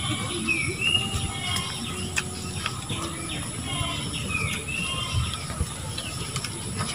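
Several birds chirping and calling, with short gliding whistled notes coming every second or so. Under them run close, irregular chewing and tearing noises from a fried chicken being pulled apart and eaten by hand.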